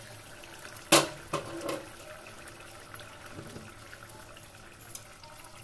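Thick curry simmering in a stainless-steel pot, a faint bubbling. A sharp clink comes about a second in and is the loudest moment, followed by two lighter knocks.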